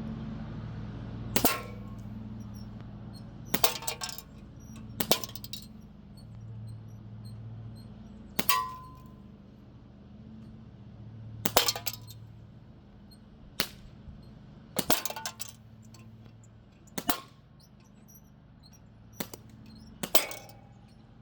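Crosman Z77 CO2 BB gun firing about ten shots at an uneven pace. Each shot is a sharp crack, and several are followed closely by a metallic clang or short ring as the BB strikes a can or metal target. A steady low hum runs underneath.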